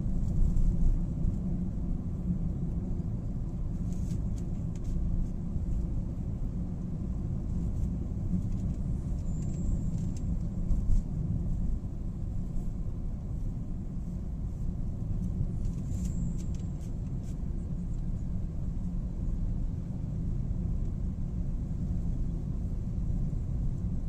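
Steady low rumble of tyre, road and engine noise inside the cabin of a car cruising on an expressway, with a few faint ticks.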